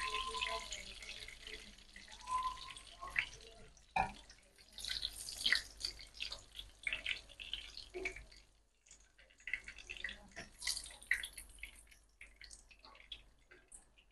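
Breadcrumb-coated chicken pieces shallow-frying in a pan of oil: irregular sizzling and crackling that comes and goes, growing sparser in the second half.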